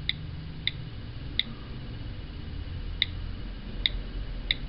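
iPhone on-screen keyboard click sounds as letters are typed on the touchscreen: six short, sharp ticks at an uneven pace, one for each key press.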